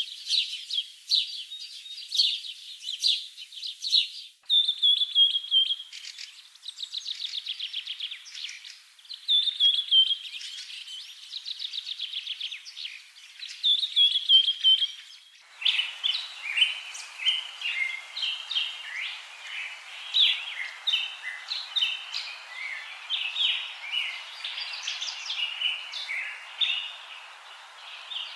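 Birds chirping and trilling, high-pitched. The sound changes abruptly about four seconds in and again about halfway through, where a denser chorus of chirps over a steady hiss takes over.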